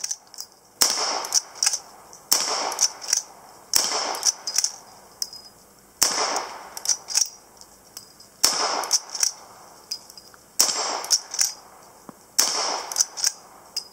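New Original Henry lever-action rifle in .44-40 firing a string of about seven shots, each a sharp crack with a ringing tail, spaced one and a half to two and a half seconds apart. Lighter metallic clicks come between the shots as the lever is worked.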